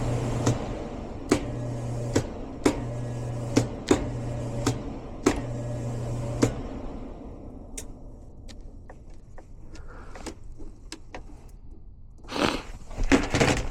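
Air handler's low-voltage control circuit being deliberately shorted: a steady electrical hum broken by a sharp click about every second as the loose white thermostat wire is touched to the metal plenum. The hum cuts out about six and a half seconds in as the short blows the low-voltage fuse. After that come faint light ticks, and a burst of handling noise near the end.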